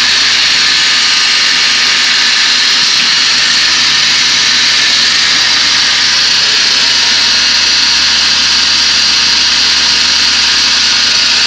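CNC router with a boring head and saw unit running: a loud, steady, high-pitched whine with hiss that does not change.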